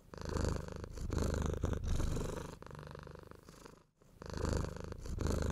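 A cat purring: a low, finely pulsing rumble that swells and fades in long phrases, breaks off briefly about four seconds in, and then starts again.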